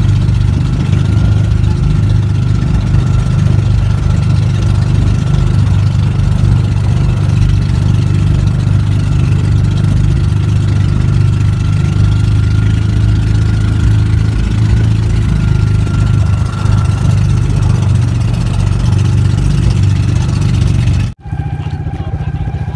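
Engine of a motorized outrigger fishing boat (pump boat) running steadily underway: a deep, even drone with a faint steady whine above it. Near the end it cuts out for an instant and comes back quieter.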